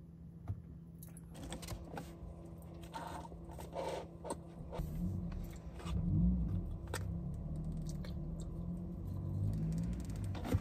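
Crackling and rustling of a takeaway fries box being handled inside a car, over a steady low hum. Low rumbling handling noise grows louder from about five seconds in.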